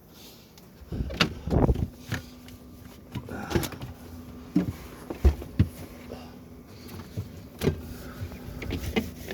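A towel wiping inside a fridge, rubbing on the glass shelf, with a string of light knocks and clicks, over a steady low hum.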